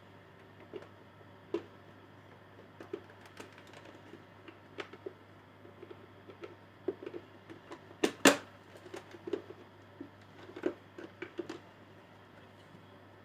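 Irregular clicks and knocks of objects being handled, the loudest pair about eight seconds in, over a faint steady hum.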